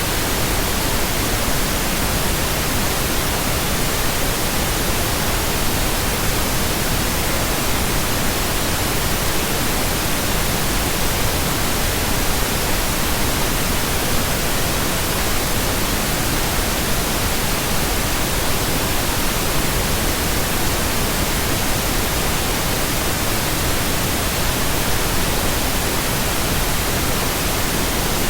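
Steady electronically generated pink noise: an even, unbroken hiss across the whole range, unchanging throughout.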